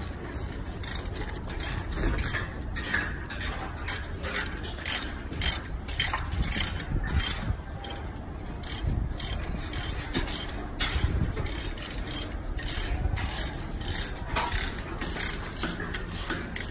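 Hand ratchet wrench clicking as bolts on a hydraulic skid shoe's clamp are turned, many quick clicks in uneven runs.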